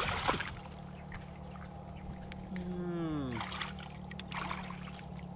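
Muddy water splashing and sloshing as hands grab at a snakehead fish in a shallow pool, in bursts near the start and again about three and a half seconds in. Just before the second burst, a short call that falls in pitch.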